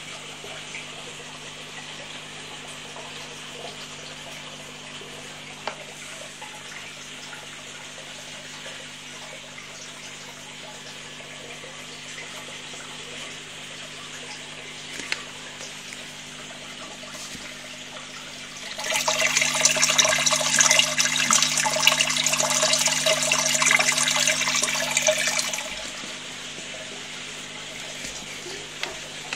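Water in a terrapin tank: a low steady hum with faint water noise, then, about two-thirds of the way in, some six seconds of loud splashing and bubbling water that stops fairly abruptly.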